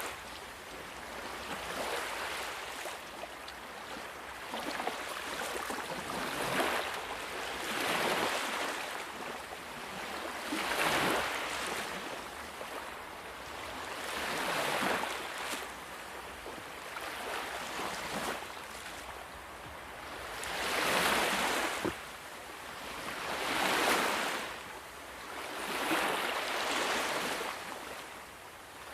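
Sea waves breaking and washing on a shore, the surf noise swelling and ebbing every few seconds.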